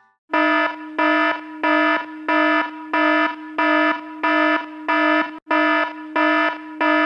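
Electronic alarm beeping: a harsh, buzzy tone of fixed pitch pulsing on and off about one and a half times a second, some ten beeps in a row.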